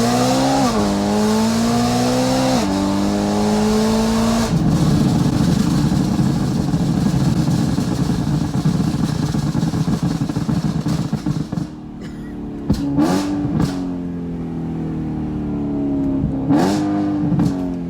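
2013 BMW M3's V8, running with catless downpipes and an Akrapovič rear muffler, revs up through two quick dual-clutch upshifts. Off the throttle it crackles and pops steadily for several seconds on overrun, the burble of its Gintani tune. Near the end, a couple of short rev blips come with sharp pops.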